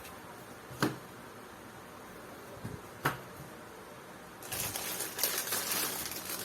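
Plastic model-kit packaging and parts being handled: two sharp clicks, then crinkling plastic for about two seconds near the end.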